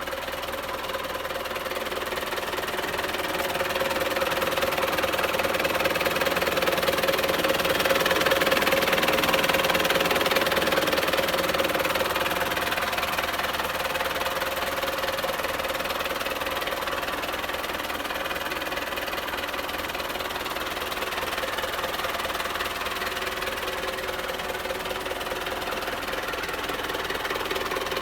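Belarus MTZ 820 tractor's diesel engine running steadily, growing louder to a peak about eight to ten seconds in and then easing off somewhat.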